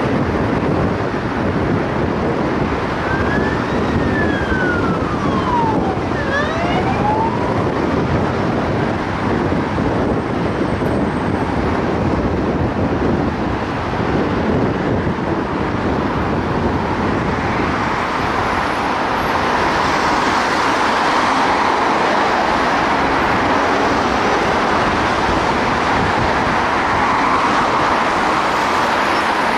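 Steady road and wind noise from a car driving in city traffic. About three seconds in, a siren sweeps up, down and back up once.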